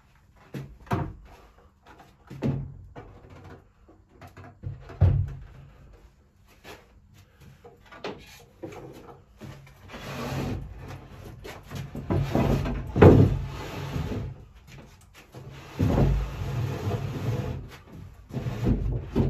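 A kitchen worktop being handled and set down onto base units: scattered wooden knocks and bumps, then stretches of scraping as the board is pushed and shuffled into place, the loudest scrape about two-thirds of the way through.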